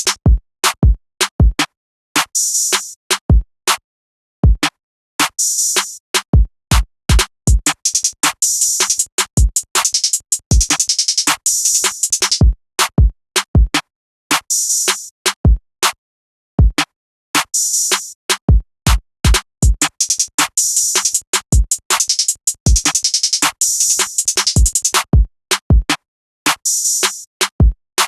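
Trap drum beat played back from a Maschine mk2: deep 808 kick hits and snares under fast hi-hat rolls. The hi-hats drop out and come back every second or two.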